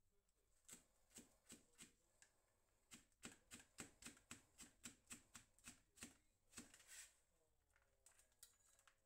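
Chef's knife chopping jalapeño chilis on a plastic cutting board, faint: a few separate chops, then a quick run of about three chops a second that stops about two seconds before the end.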